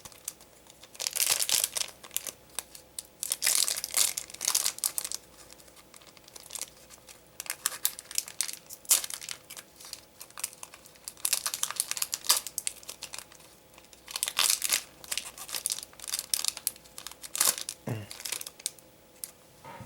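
Foil wrappers of Digimon Card Game booster packs crinkling and tearing as packs are opened, in repeated bursts of rustling a few seconds apart.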